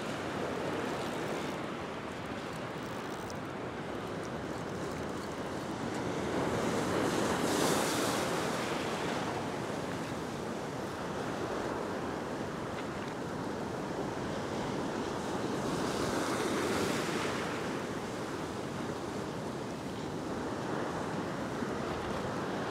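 Ocean swell breaking on a flat rock shelf and white water washing across it, a steady rushing that swells louder twice, about a third of the way in and again about three quarters of the way through.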